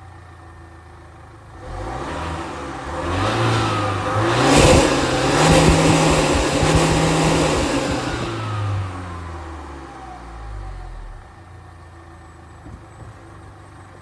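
A 2018 Jaguar XE's 2.0-litre four-cylinder engine idling, then revved up about two seconds in, held high for several seconds, and falling back to a steady idle near the end.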